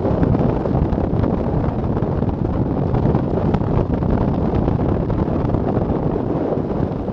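Steady, heavy wind rushing over the microphone of a recumbent bicycle descending at about 35 mph.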